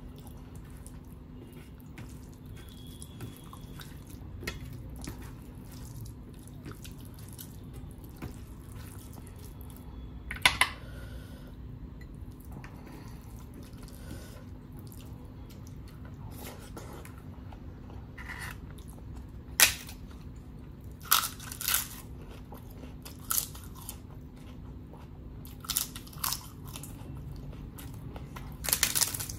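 Close-up eating sounds: chewing and fingers squishing rice and dal on a steel plate, with sharp crunches of crisp papad about ten seconds in and several more through the second half.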